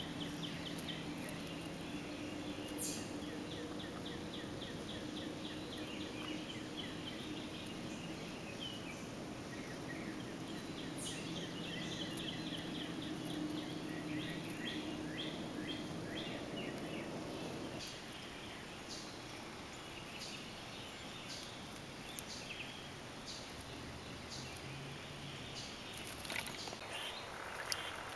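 Outdoor ambience of small birds chirping in quick repeated trills, over a steady low hum that cuts off about two-thirds of the way through; a few sharp clicks near the end.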